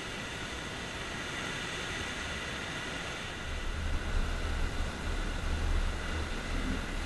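Lake Erie waves washing onto a stony beach and ice-coated boulders, a steady hiss of surf. About halfway in a low, uneven rumble joins and grows louder.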